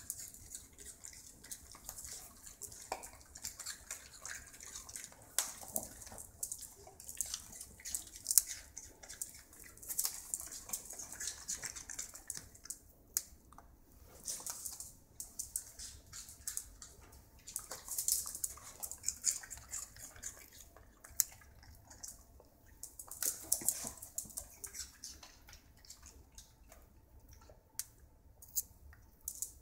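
Small dogs crunching and chewing crisp pieces of raw bok choy, an irregular run of wet crunches and clicks, with claws ticking on a tile floor.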